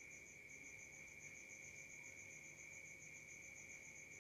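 Near silence with faint insects chirping: a steady high trill under a higher pulsing chirp of about eight beats a second.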